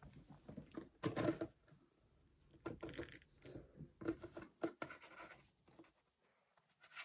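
Hands handling objects on a tabletop: irregular scratchy rustling with light knocks, loudest about a second in, with a short lull near the end.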